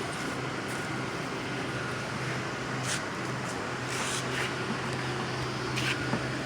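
Steady low room hum from an air-conditioning unit or fan, with a few faint clicks and rustles as the toy tank's parts are handled.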